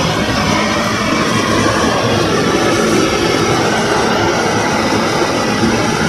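Hose-fed gas torch burning with a steady hiss as it is passed over a plucked chicken to singe off the remaining hairs.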